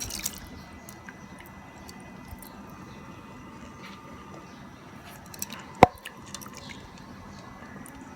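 Coconut milk simmering in a pot with soft wet bubbling and plops as glutinous rice goes in, with faint scattered ticks and one sharp clink a little under six seconds in.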